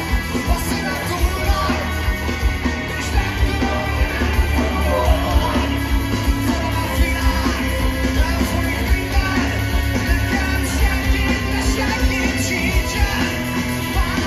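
Live rock band playing through a large open-air PA: a male singer over drums, bass and guitars, with a steady beat, heard from far back in the audience.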